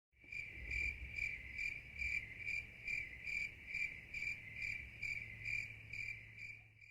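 Insect chirping: a steady high trill that pulses about twice a second.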